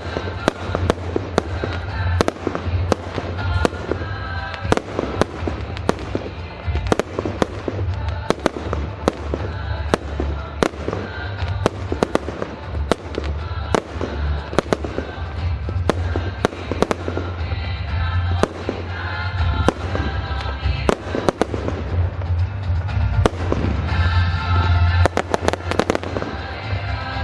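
Fireworks display: a rapid run of aerial shell bursts and bangs, a few a second, growing denser near the end, with music playing along.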